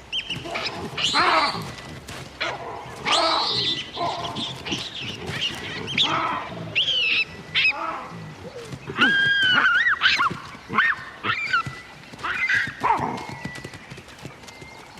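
Baboons screaming and squealing as they fight among themselves: a rapid run of shrill, sliding calls, loudest about a second in, around three seconds in, and again at about nine to ten seconds.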